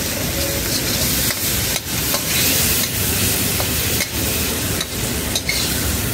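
Bacon sizzling steadily in a hot carbon steel wok, stirred and pushed around with a metal spatula.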